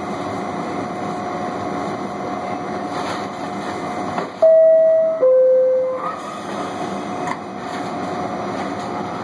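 Steady hum of a standing R68A subway car. About four and a half seconds in, a loud two-note electronic door chime sounds, a higher note then a lower one, each under a second long. It is the warning that the doors are about to close.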